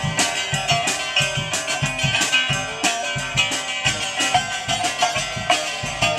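Live blues band: an acoustic guitar strummed and picked over a steady drum-kit beat.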